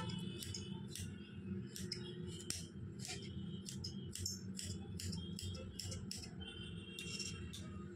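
Kitchen knife dicing raw carrot on a cutting board: a quick, uneven run of sharp chopping taps, two or three a second.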